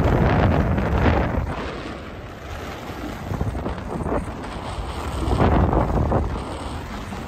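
Wind buffeting the camera microphone of a skier moving fast downhill, mixed with skis sliding over packed snow. The rush eases about two seconds in and builds again near the end.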